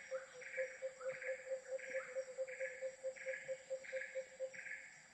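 Insects chirping in a regular chorus, short chirps repeating a little more than once a second over a steady high hiss. A fast series of low pulsing notes, about six a second, runs alongside and stops near the end.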